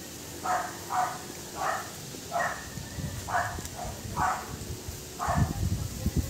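A dog barking repeatedly in the distance, a string of about seven short barks roughly one a second. From about five seconds in, wind rumbles on the phone microphone.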